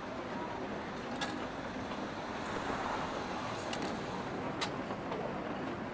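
Cafe ambience: a steady hiss of rain against the windows under a low room murmur, with a few sharp clicks about a second in and twice more in the second half.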